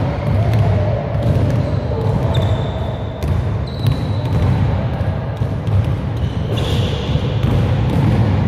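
Basketball being dribbled on an indoor gym court, a steady run of bounces, with a few high-pitched squeaks heard now and then.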